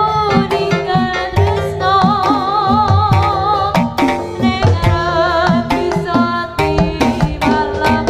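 East Javanese jaranan music: kendang hand drums play quick strokes that drop in pitch, under a sustained, wavering melody line.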